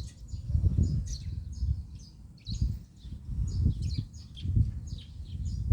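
Small birds chirping in a quick, irregular string of short high notes. Louder low rumbling bursts on the microphone come and go about once a second.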